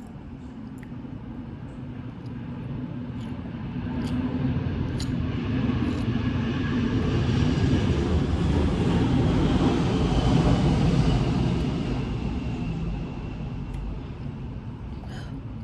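Airplane passing overhead: a rumble that swells to its loudest about ten seconds in and then fades, with a high whine that slides down in pitch as it goes by.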